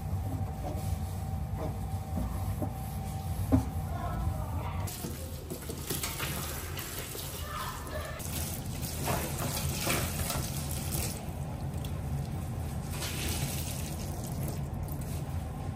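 Water running from a kitchen tap into the sink, in spells of a few seconds.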